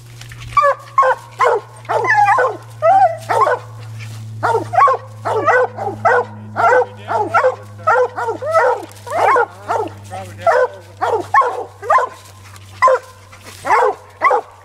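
English coonhound barking treed, a steady run of short barks about two a second, signalling a raccoon up the tree.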